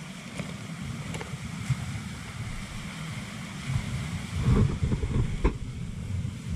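Wind buffeting the camera microphone over the wash of sea waves, with a few faint clicks. The buffeting swells for a moment about four seconds in.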